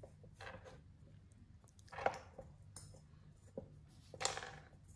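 Light plastic knocks and rustles as a cat noses and paws at a plastic treat puzzle feeder, with the loudest knocks about two seconds in and just past four seconds.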